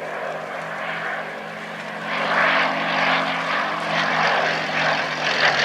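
Westland Lysander's Bristol Mercury nine-cylinder radial engine and propeller running in flight, a steady drone that grows louder about two seconds in.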